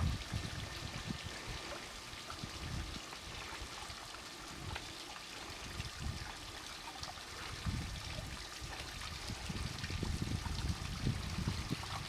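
Small garden waterfall trickling steadily over stacked stones into a pool, with irregular low rumbling that grows louder near the end.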